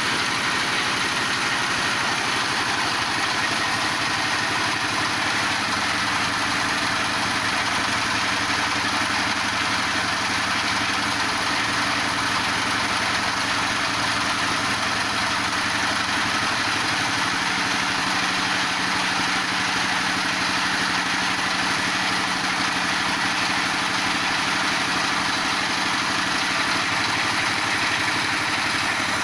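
Feed pellet machine running steadily under power, with a continuous mechanical drone; its low hum shifts pitch about seventeen seconds in.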